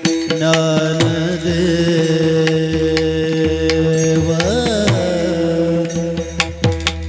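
Varkari kirtan music: a steady held drone under sharp, rhythmic mridang strokes with deep booming bass tones. A voice slides up and down in pitch about four and a half seconds in.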